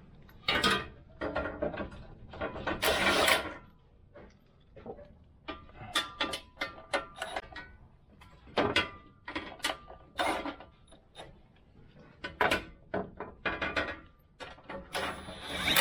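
Metal tools and parts clanking and clicking in irregular bursts during work under a truck, some strikes ringing briefly.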